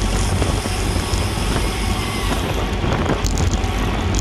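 Steady wind rush buffeting a bike-mounted action camera's microphone while riding in a pack of road bikes at racing speed, with the road noise of the tyres beneath it.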